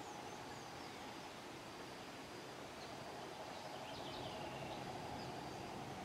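Outdoor background ambience: a steady hum with faint, brief high bird chirps scattered through it, a few more together about four seconds in.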